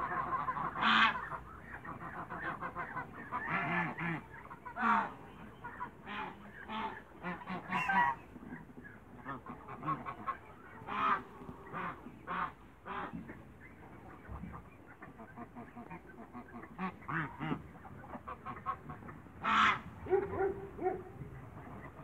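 Domestic African and Toulouse geese honking in short calls, a few loud ones standing out above softer calls in between.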